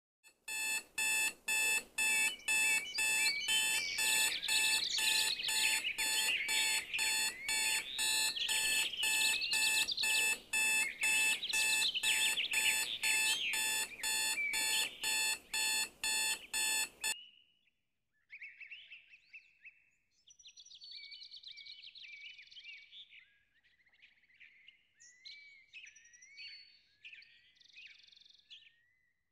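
An alarm beeping in rapid even pulses, about two or three a second, that cuts off abruptly about 17 seconds in. After that, birds chirp faintly.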